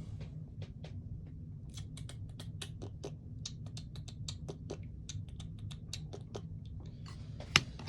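Irregular small clicks and taps of hard airsoft gun parts being handled and fitted, over a steady low hum; one sharper knock near the end.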